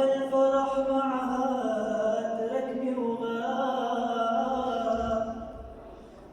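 A young man singing an Arabic song solo, holding long ornamented notes that bend in pitch; the phrase fades away near the end.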